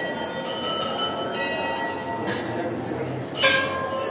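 Temple bells struck several times in a row, each strike ringing on with several clear tones. The loudest strike comes about three and a half seconds in.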